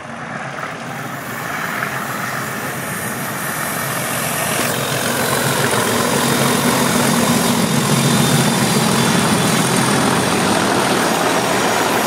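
Three diesel locomotives hauling a passenger train, their engines growing steadily louder as they approach and pass close by. A low engine drone is strongest about halfway through, and the coaches begin rolling past near the end.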